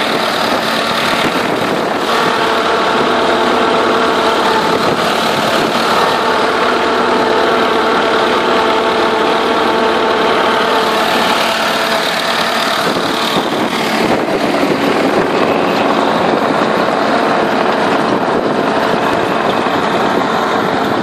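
Turbocharged LTZ T-40 tractor's air-cooled four-cylinder diesel running steadily under load while it drives a rear-mounted rotary tiller through garden soil.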